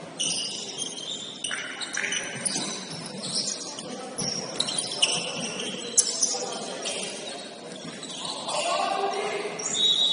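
Basketball shoes squeaking on a hardwood gym court during play: many short, high squeals, with a few sharp knocks.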